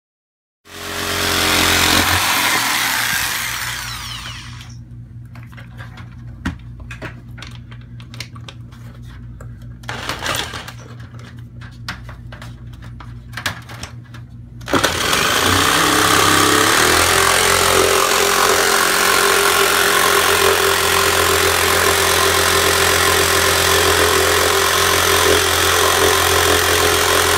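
Corded Craftsman jigsaw cutting a hole through an RV ceiling into the air-conditioning duct. It runs loud for about four seconds, then goes quieter and rattles in rapid clicks with a short loud burst partway through, then runs steadily at full level from about halfway in.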